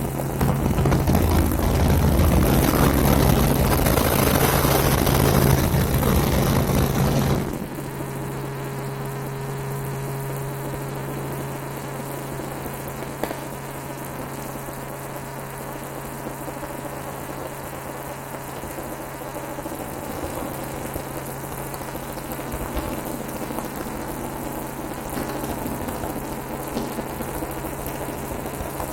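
Helicopter engine and rotor noise, a steady drone with a low hum. About seven seconds in it drops suddenly to a quieter, steady drone.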